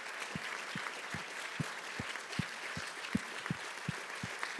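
Audience applauding steadily at the end of a talk, many hands clapping at once.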